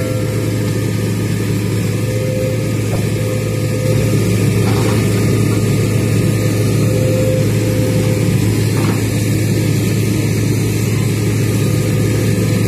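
Hitachi hydraulic excavator's diesel engine running steadily with a low hum while the arm and bucket work, getting a little louder about four seconds in.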